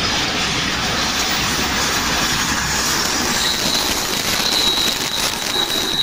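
JR Shikoku 8000 series electric limited-express train running past over a level crossing: steady, loud rumble and rattle of wheels on the rails, with a thin high squeal joining about halfway through.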